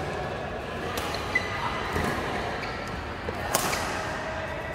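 Badminton rally: racket strings striking the shuttlecock in sharp cracks, four or so in a few seconds, the loudest about three and a half seconds in, each ringing on briefly in the large hall.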